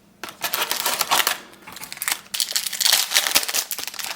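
Trading-card booster pack wrapper being torn open and crinkled by hand, a dense crackling that starts about a quarter second in and eases briefly about halfway through.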